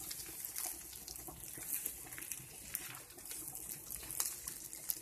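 Diced chicken sizzling in oil in a cast-iron skillet while it is stirred with a spatula, with scattered light scrapes and clicks of the spatula against the pan.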